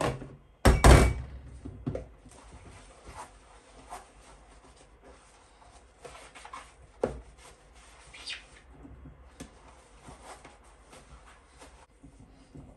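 Hands handling things in a kitchen: a loud knock about a second in, then scattered light clicks and rubbing.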